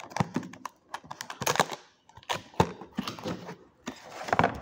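Cardboard box being handled and opened by hand: an irregular run of light taps, clicks and short scrapes of cardboard as the lid is worked open.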